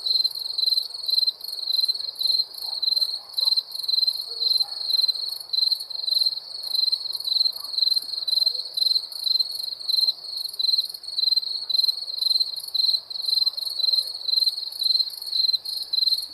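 Crickets chirping in an even, repeating rhythm of high-pitched pulses, about two chirps a second.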